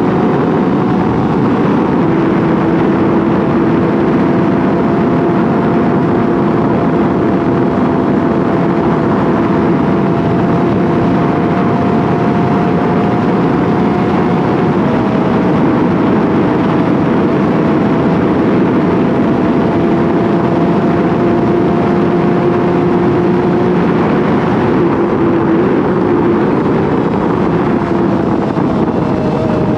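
Yamaha R6's inline-four sportbike engine running at a steady, held throttle while cruising, mixed with wind rush. The engine note stays level and drops slightly a few times.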